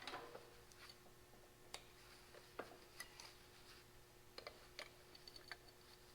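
Faint, irregular small clicks and taps of hands working loose metal parts and hand tools, over a faint steady hum.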